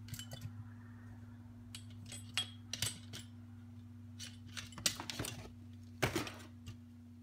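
Small metal tools and parts clicking and tapping against an RC car's carbon-fibre chassis as the steering linkage is worked in by hand. The clicks are scattered and irregular, the loudest about five and six seconds in, over a steady low hum.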